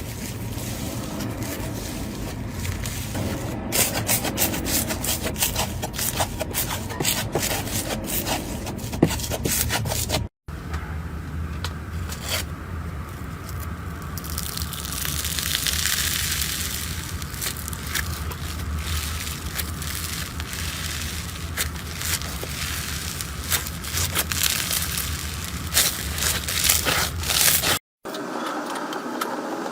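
Slime being squeezed, pressed and scraped by hand, with dense crackling clicks and scraping; the texture changes abruptly twice, at short silent cuts between clips.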